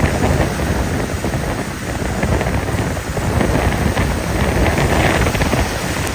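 Strong thunderstorm wind gusts buffeting the microphone: a loud, rumbling roar with a hiss over it, swelling and easing, strongest about four to five seconds in.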